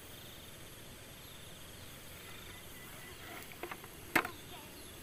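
Faint steady insect chirring, with two small knocks about three and a half seconds in and a single sharp knock just after four seconds.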